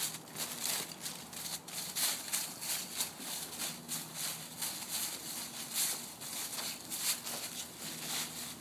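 A small child's footsteps crunching and rustling through dry fallen leaves on pavement, an irregular run of crackly crunches, several a second.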